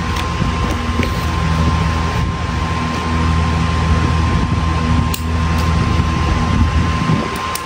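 A steady low mechanical hum, like a running fan, with a few faint clicks of scissors snipping through the small plastic fasteners that hold a coil rubber car mat to its cardboard.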